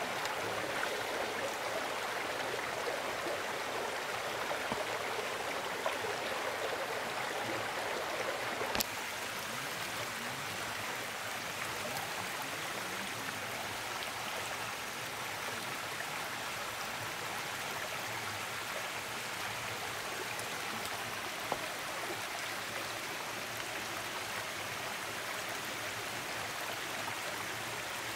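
A stream running, a steady rush of flowing water. A sharp click comes about nine seconds in, after which the rush is a little quieter.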